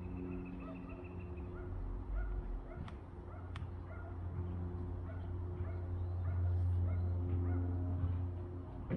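Many short bird chirps over a steady low hum, with two sharp clicks about three seconds in.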